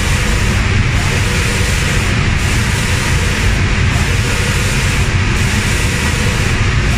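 Automatic spray painting machine running: loud, steady hiss of the spray guns and booth air over a low mechanical rumble, the highest part of the hiss dipping briefly about every one and a half seconds.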